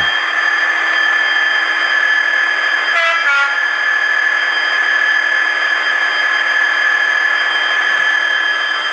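Sound decoder in an N gauge Dapol Class 66 model playing its diesel engine sound through the loco's small speaker at maximum volume, a steady whine over hiss. About three seconds in comes a brief horn blast.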